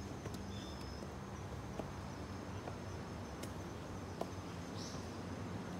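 Outdoor ambience on a stone stairway: a steady low rumble with a few sharp clicks of footsteps on the stone steps. A thin, high insect buzz stops about a second in, and a short high chirp comes near the end.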